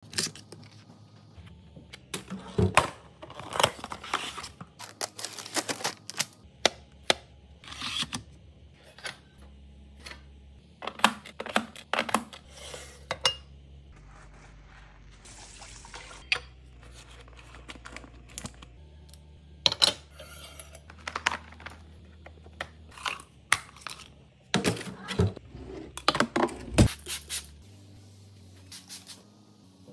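Kitchen cleaning and handling sounds: a string of sharp clicks, knocks and clinks of glassware and dishes being set down and handled, with a short burst of running water at the sink about halfway through.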